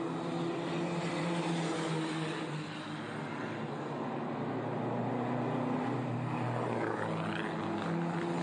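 Pre-war racing car engine running as the car drives along the street circuit, its note stepping between pitches and rising near the end as it accelerates.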